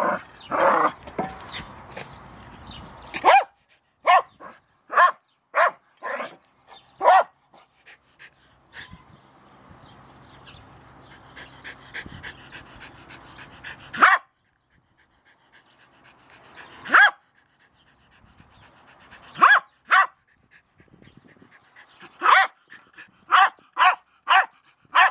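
Jack Russell terrier barking: single sharp barks a second or more apart, then a quick run of about six barks near the end.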